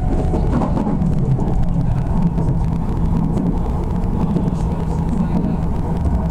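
Running noise of an Odakyu 60000 series MSE electric train, with Toshiba IGBT-VVVF drive and totally enclosed motors, heard from inside the car: a steady rumble of wheels on rail with a faint steady hum.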